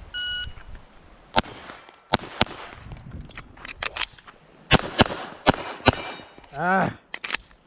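A shot timer beeps, then a Glock 44 .22 LR pistol fires about nine rounds in quick pairs and singles. There is a pause of about two seconds partway through, for a magazine reload.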